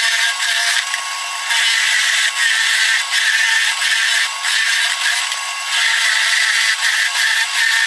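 Drill press running steadily while a Forstner bit bores into rough pallet wood, the cutting sound easing off briefly a few times.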